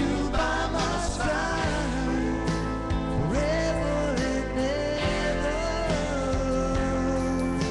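A man sings a country ballad into a microphone over a karaoke backing track, drawing out long notes.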